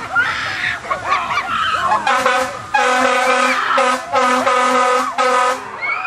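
Air horn sounding a run of about five blasts with short breaks between them, starting about two seconds in. Before the horn, people's voices yell and shriek.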